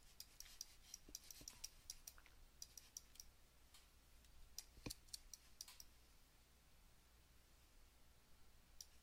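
Faint clicking of a computer mouse and keyboard: a quick scatter of clicks for about the first three seconds, a few more around five seconds in, then near silence before a couple of clicks at the end.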